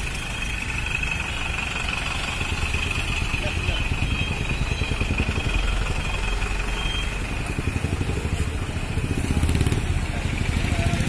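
A vehicle engine running steadily near idle, with people talking in the background. The engine gets a little louder about nine seconds in.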